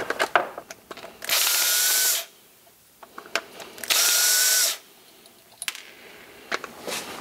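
Ridgid cordless drill-driver run in two short bursts of about a second each, backing out the screws of a plastic drill housing. Its motor whine rises slightly as it spins up. Light clicks of handling come between the bursts.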